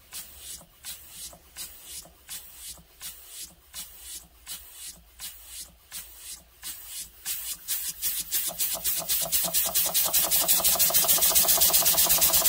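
Model single-cylinder horizontal mill engine running on compressed air, its exhaust puffing in an even beat of about two a second near its slowest speed. From about seven seconds in it speeds up, the puffs coming faster and louder until they run together in a quick beat.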